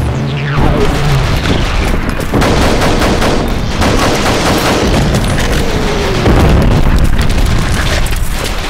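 Rapid gunfire sound effects, a dense run of shots like machine-gun bursts, with a couple of falling tones through them. It gets louder about six seconds in.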